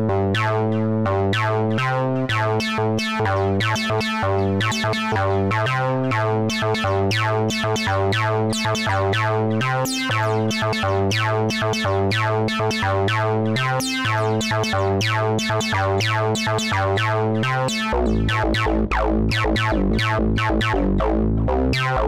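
Native Instruments Massive X software wavetable synthesizer playing its 'Art Dual' bass preset: a rapid run of short plucked notes, each with a quick downward filter sweep, over a sustained bass line that changes pitch every second or two. About 18 seconds in, the bass drops lower and the texture changes.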